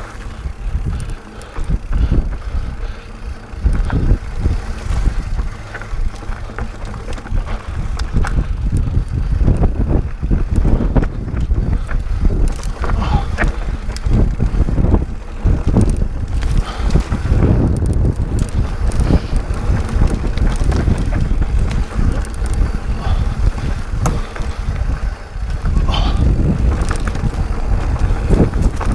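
2016 Santa Cruz Hightower 27.5 Plus mountain bike riding down a rocky dirt singletrack: tyres rolling over loose dirt and rock, with frequent knocks and rattles from the bike over bumps. Wind rumbles on the microphone throughout.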